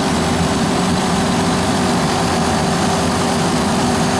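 Refrigeration condensing unit with a Copeland compressor running with a steady hum and a constant tone. It sounds not noisy and is pumping the system down, with heat already in the discharge pipe: a sign it is running the right way.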